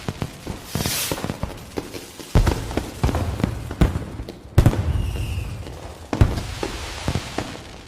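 Fireworks going off: a stream of sharp cracks and pops, a rushing hiss about a second in, and three heavier booms spread through it.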